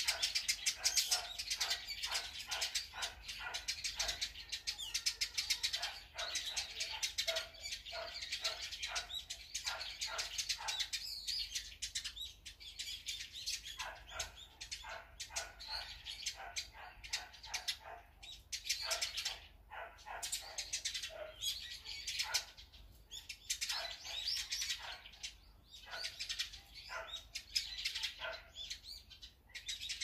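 Wild songbirds chirping and calling, many short high chirps overlapping densely at first, then coming in clusters with short lulls.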